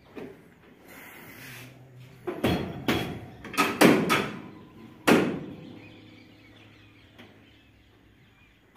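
A run of metallic bangs and clanks from the steel ladder and operator's platform of a Swaraj 8100 combine harvester as the operator climbs aboard and sits down. They bunch between about two and five seconds in, and the last is one of the loudest.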